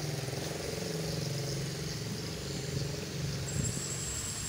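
A motor vehicle engine running steadily, a low hum with a steady pitch.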